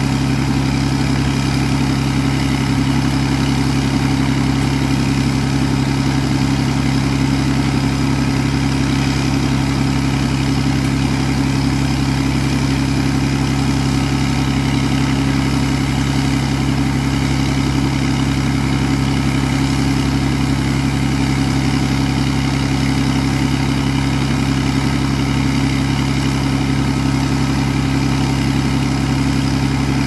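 Atlas Copco XA 420 portable diesel air compressor running steadily, a constant low engine drone that does not change in pitch or level.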